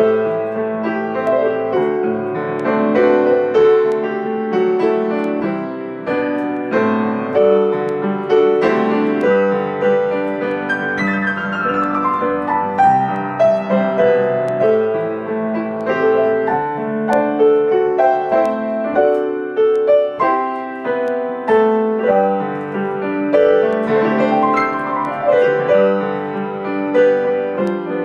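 Solo acoustic piano on a white baby grand, played steadily with chords under a melody. A quick descending run of notes comes about halfway through.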